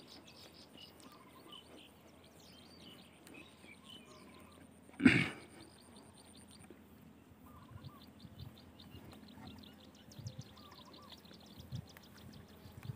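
Quiet pond-side ambience with birds chirping and a fast, evenly repeating high trill in the second half. A single short, sudden thump about five seconds in is the loudest sound.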